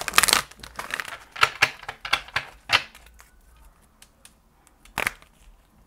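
Tarot cards being handled and shuffled by hand on a tabletop: a run of quick clicks and slaps for about three seconds, then a short burst of clicks again near the end.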